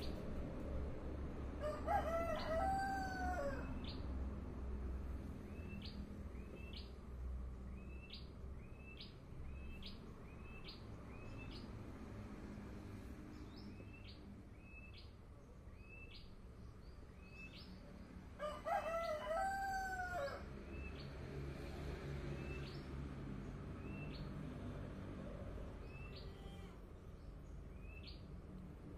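A rooster crowing twice, a couple of seconds in and again about two-thirds of the way through. Under it a small bird chirps over and over with short, high chirps.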